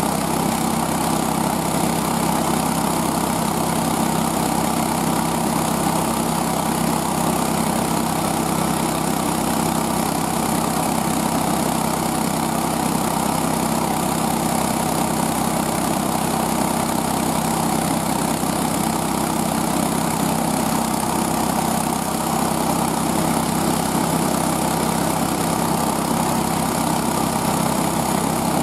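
Small gas engine of a homemade motorized sled running steadily at an even speed as the sled travels over snow.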